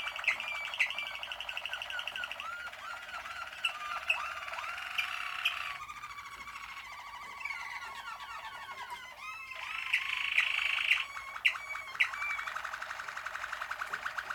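Malinois (Waterslager) song canaries singing a continuous song of rapid trills and rolling, bending phrases, with a few short sharp notes standing out near the start and again about eleven to twelve seconds in.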